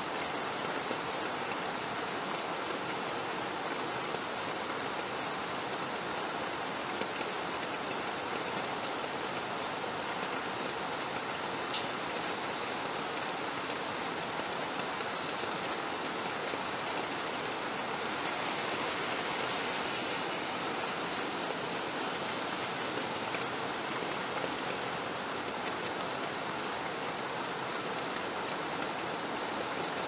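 Steady rain falling, an even, unbroken hiss with no let-up.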